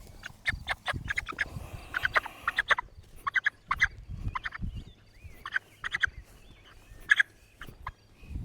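Young broiler chickens squawking in short, sharp calls, many in quick succession, as they are caught and carried by hand.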